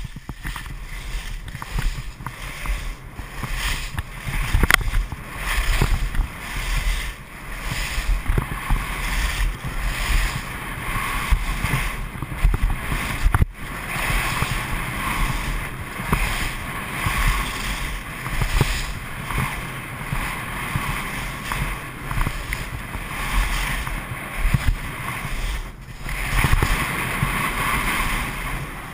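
Wind buffeting the microphone of a skier's action camera on a fast downhill run, with the hiss and scrape of skis sliding and carving on the snow, swelling and dipping every second or two.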